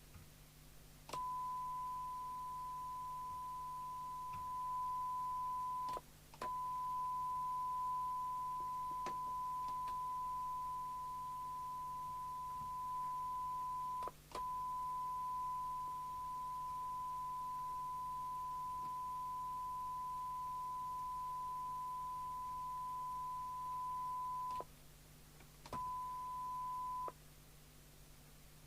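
Steady 1 kHz test tone from a signal generator, heard through the CB radio's speaker. It cuts out briefly three times, each time with a click: the receiver's squelch closing and reopening as the squelch preset is set.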